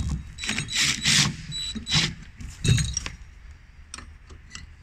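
Metal clinks and clanks as a steel valve bracket with its bolted-on hydraulic valve block is shifted and turned over on a bench, with a few sharper knocks.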